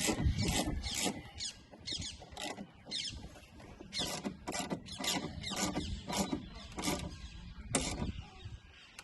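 Hand spanner working a nut on a strut brace mount, tightening it in short strokes of metal scraping and clicking, two to three a second, stopping near the end.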